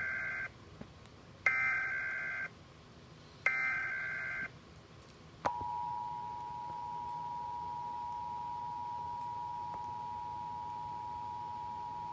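Emergency Alert System periodic test tones broadcast on TV: the end of one short burst of the SAME digital header data and two more screeching data bursts a second apart, then about five and a half seconds in the steady two-tone EAS attention signal begins and holds.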